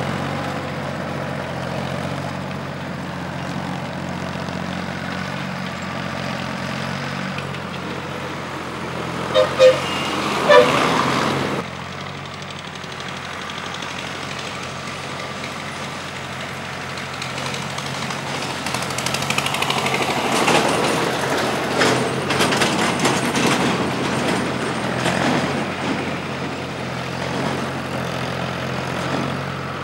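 Farm tractor engine running steadily as it pulls a plough. Two short, loud toots come about nine and ten seconds in. The sound is louder and busier through the second half.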